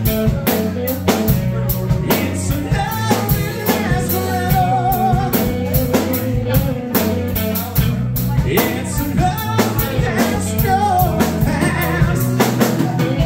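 Live rock band playing: electric bass, drum kit with cymbals and electric guitar, with a wavering melodic line over the top.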